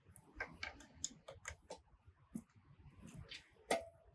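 Scattered light metallic clicks and taps of an adjustable spanner working a hydraulic valve fitting tight, with one louder clink that rings briefly near the end.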